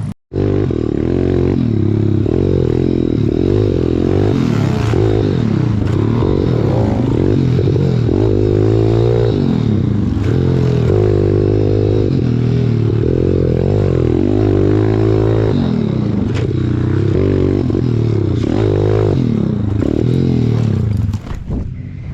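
Pit bike's small single-cylinder engine revving up and down over and over as it is ridden hard around the track. The engine noise drops away about a second before the end.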